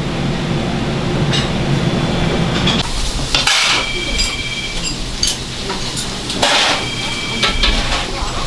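Busy restaurant kitchen: food sizzling in the pan, with clinks of pans and utensils and voices in the background. The sound changes abruptly about three seconds in.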